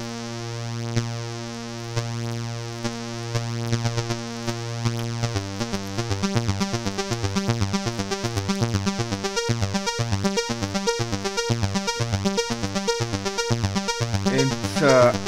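Analog modular synthesizer voice shaped by an ADSR envelope set to a very long release: first one steady held tone as the notes run together, then about five seconds in it breaks into a quick run of short, separate sequenced notes. A rising sweep sounds near the end.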